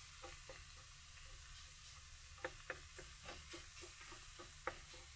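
Wooden spoon stirring crumbled sausage and diced vegetables in a frying pan: irregular light clicks and taps of the spoon against the pan, with one sharper tap near the end.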